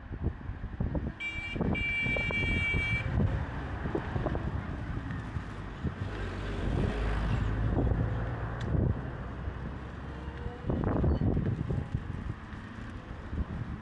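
Street traffic: a high-pitched vehicle horn gives a short toot about a second in, then holds for about a second and a half. Later a motor vehicle's engine rumble swells and passes.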